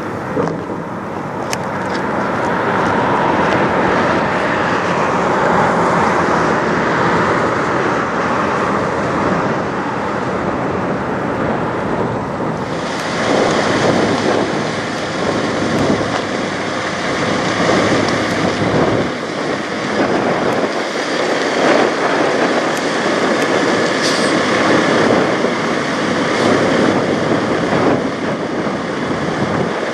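Semi truck diesel engine running, with wind on the microphone. After a cut about twelve seconds in, a bobtail Peterbilt tractor's diesel engine is heard as it rolls slowly across the lot.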